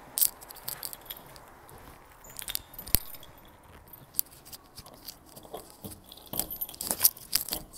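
A bunch of keys jangling and clicking at a door, in short scattered rattles that grow busier near the end.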